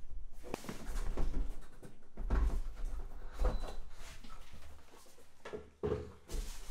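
A cardboard box and its packaging being handled as a tablet is unpacked: a series of soft knocks, scrapes and rustles, about six of them spread through the few seconds, with a quieter pause near the end.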